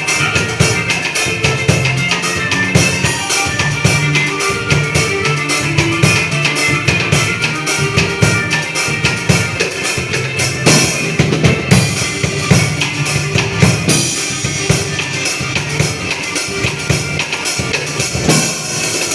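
Drum kit played along with a recorded forró song: steady kick drum, snare and rimshot hits over the band's music.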